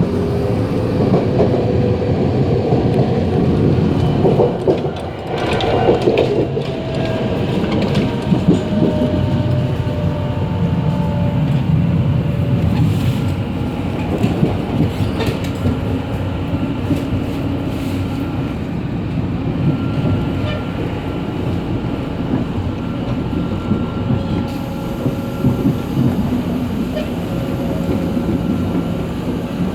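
Running noise in the gangway between two cars of a Puyuma express (TEMU2000 tilting EMU): a steady rumble with scattered clicks and knocks, and thin whining tones that drift in pitch now and then.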